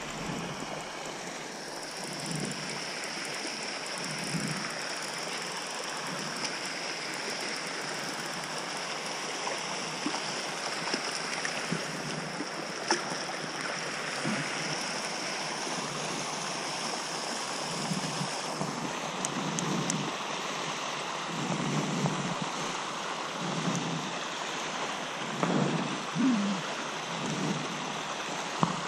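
Steady rushing and splashing of a water jet spraying from a pipe onto the pond's surface, with scattered low thumps in the last third.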